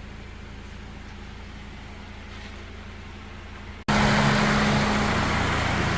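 Car engine idling steadily with a low hum. A little under four seconds in, the sound jumps abruptly to a louder, hissier idle with a stronger hum.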